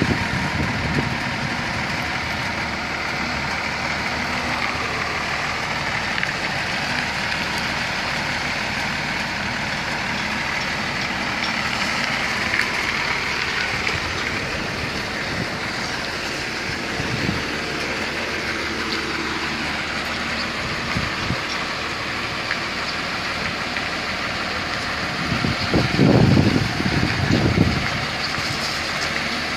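Diesel engine of a truck tractor unit running steadily at low speed as it manoeuvres, with a brief louder low rumble near the end.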